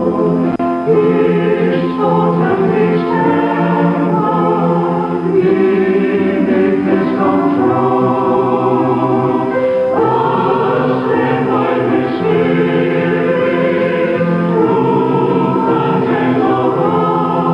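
Mixed church choir singing sacred music in harmony, in long held chords.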